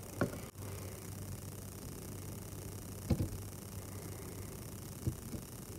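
A few light knocks and taps over a steady low hum, the loudest a double knock about three seconds in.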